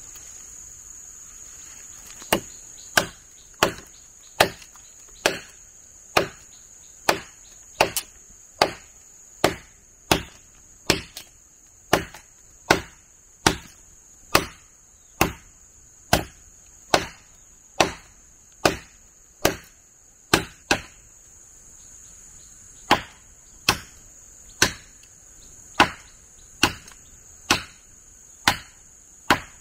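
Repeated sharp chopping strikes of a hand tool, a little more than one a second, starting about two seconds in and pausing briefly about two-thirds of the way through. A steady, high-pitched insect shrill runs underneath.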